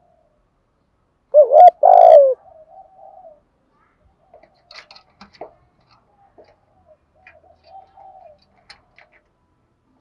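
Spotted dove cooing: one loud two-part coo about a second and a half in, a short note rising and falling and then a longer note that drops at its end. It is followed by fainter low coos, with a few faint high chirps.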